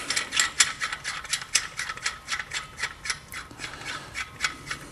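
Hand ratchet clicking as lug nuts are backed off the wheel studs, a quick run of sharp clicks, about five a second.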